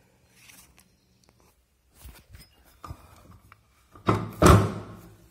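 A few faint clicks and taps, then a loud thud, two knocks close together about four seconds in, that dies away quickly: objects being handled and set down.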